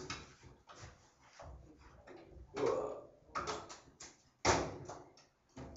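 A handful of knocks and clatters as a ski and tuning tools are handled on a workbench with ski vises, the loudest a sharp knock about four and a half seconds in.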